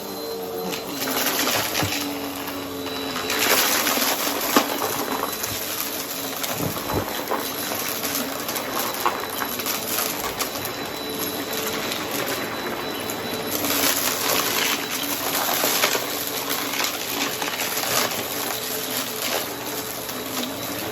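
Vacuum cleaner running with its brushroll on: a steady motor whine under dense crackling as it picks up crunchy debris. It swells louder a few seconds in and again past the middle.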